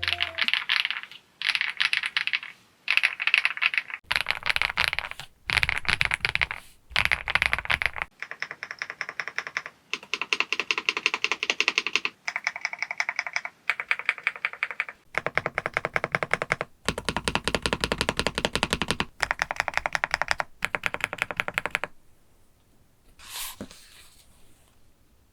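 EPOMAKER TH99 PRO mechanical keyboard being typed on in a sound test, stabilized keys included: about a dozen bursts of rapid keystrokes, each a second or two long, with a rounded clack like rolling pebbles. The typing stops about three seconds before the end, followed by a single faint knock.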